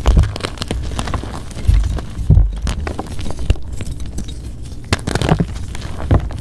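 Blocks of plain gym chalk being crushed and crumbled: a dense, irregular crunching crackle with a few heavier dull crunches near the start and about two seconds in.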